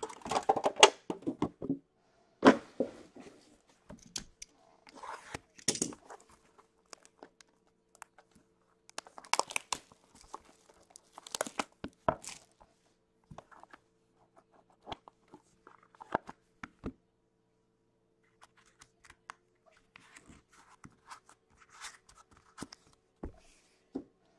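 A sealed Upper Deck hockey-card box being opened by hand: wrapping torn and crinkled, cardboard rubbing as the lid is worked off, and light knocks of the box on the table, in scattered bursts.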